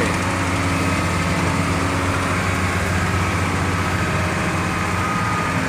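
Wheel loader's diesel engine running steadily, heard from inside the cab, with a faint steady high whine above the engine's note.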